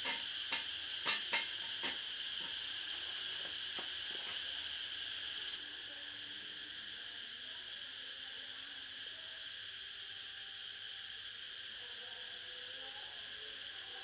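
Steady chorus of insects, a continuous high buzz, with a handful of sharp knocks or clicks in the first two seconds and two fainter ones about four seconds in.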